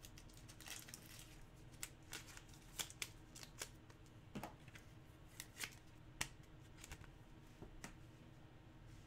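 Near silence: a low steady room hum with a scattering of faint, light clicks and rustles from small objects being handled.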